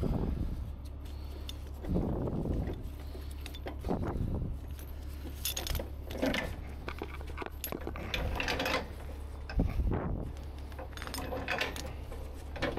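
Steel recovery chain clinking and rattling in irregular bursts as it is handled and rigged, over a steady low hum.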